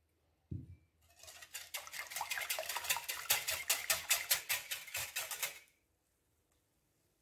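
Wire balloon whisk beating milk and eggs in a glass bowl: quick rhythmic strokes, about five a second, for nearly five seconds, then stopping. A brief low thump about half a second in.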